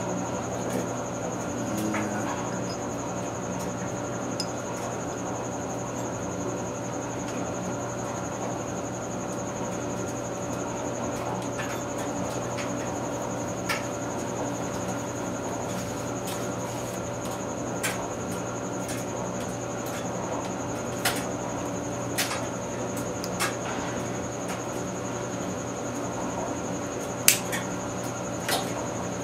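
Light clicks and taps, scattered and irregular, from main bearing shells being handled and set into a Ford 302 V8 block, the sharpest click about 27 seconds in. A steady background hum with a few fixed tones runs beneath them.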